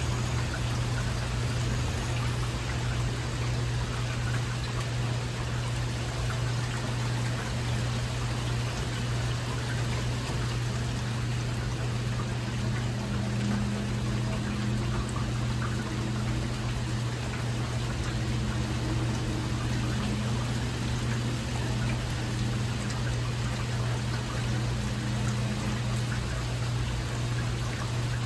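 Heavy rain falling steadily, with a steady low hum underneath. No thunder.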